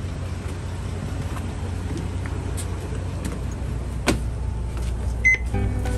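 City bus engine idling with a steady low rumble while passengers board, with a sharp click about four seconds in and a short high electronic beep a little after five seconds in.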